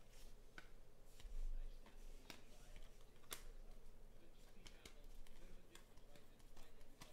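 Panini Prizm football cards being thumbed through by hand: faint, scattered clicks and slides of card edges against one another, with a dull low bump about a second and a half in.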